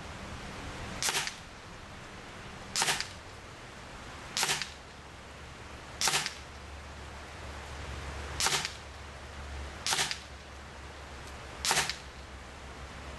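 Evanix Speed pre-charged pneumatic (PCP) air rifle firing single shots in semi-auto mode: seven sharp cracks, one and a half to two and a half seconds apart.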